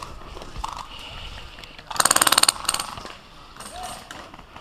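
Airsoft gun firing a short full-auto burst, a rapid even run of clicks lasting about half a second, about two seconds in.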